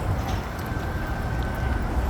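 City street ambience: a steady low rumble of traffic, with a faint steady high tone lasting about a second in the middle.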